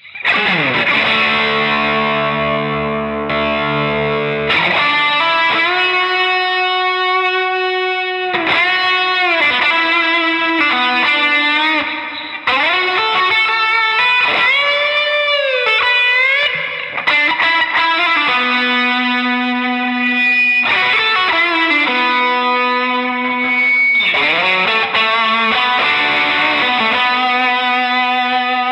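Fender Stratocaster electric guitar playing a slow, distorted lead through a pedalboard of drive and effect pedals: long sustained notes with string bends that glide up and back down.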